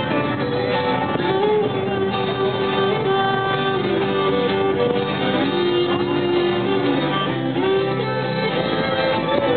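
Fiddle playing a lively tune, backed by acoustic guitars.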